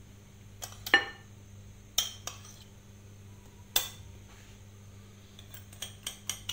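Metal spoon clinking against a ceramic bowl and dish while an oil-and-spice marinade is spooned over peeled potatoes. The clinks are sharp and scattered, the loudest about a second in, with a quick run of them near the end.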